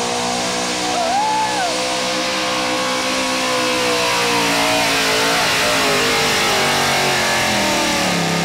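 Chevrolet 4x4 pulling truck's engine running loud at high, steady revs under full load while it drags the weight sled. The engine speed sags near the end.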